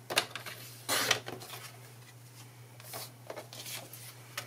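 A paper trimmer and a strip of cardstock being cut and lifted off: a few sharp clicks and short scraping, rustling sounds of the blade and card.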